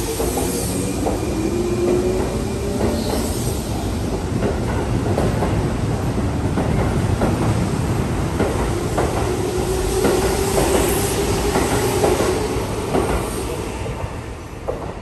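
Keihan limited express electric train pulling out and accelerating past: a motor whine rising in pitch at first, then a steady rumble with the wheels clicking over rail joints, fading near the end as the last car leaves.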